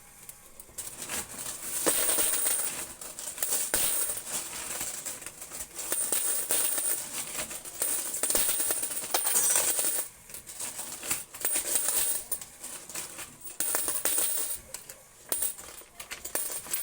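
Quarters clattering in a coin pusher arcade machine: a dense, uneven run of small metallic clinks that swells and eases off several times, over a faint high steady tone.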